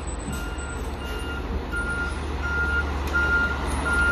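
Backup alarm of a 2018 Pierce Arrow XT fire engine beeping steadily, about two beeps a second, as the truck reverses. Its engine runs underneath with a low rumble, growing slowly louder as it comes closer.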